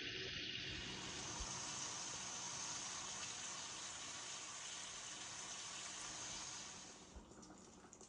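Thick-cut bacon sizzling in a cast-iron skillet over a gas burner: a steady hiss of fat frying, which drops away sharply about seven seconds in.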